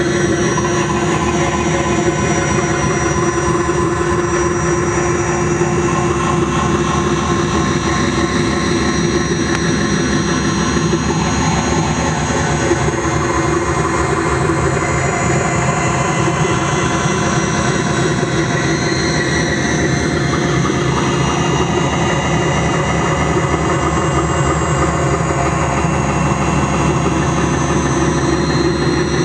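Electronic drone from a cassette tape head reading videotape on a turntable, run through a Whammy pitch-shifter, a bass effects pedal and a digital delay. It is loud and steady, with many held tones layered together that drift slowly in pitch.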